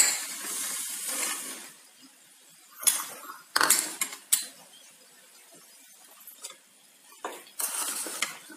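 Spatula stirring and scraping chopped vegetables in a pan, in four short bouts with quiet gaps between. A few sharp clinks against the pan come around the middle.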